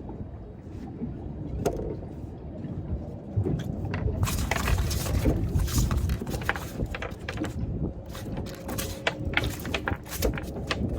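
Sounds aboard a small boat on the water: a steady low rumble of water and wind, with many short clicks and knocks that come thicker from about four seconds in.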